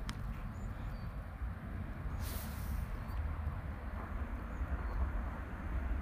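Steady low outdoor rumble, with a brief hiss about two seconds in.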